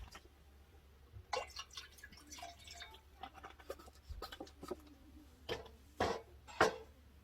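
Irregular light clicks and knocks, with three sharper knocks near the end.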